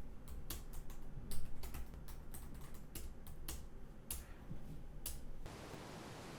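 A series of light, irregular clicks, two to four a second, like typing on a keyboard, giving way about five seconds in to a steady soft hiss.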